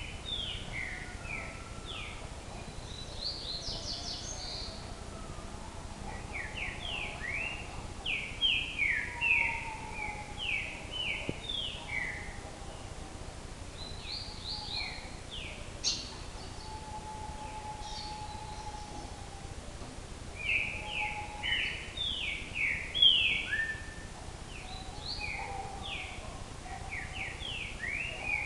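Songbird singing in repeated phrases of short, quickly falling notes, with a few fainter drawn-out lower whistles between phrases over a steady background hiss.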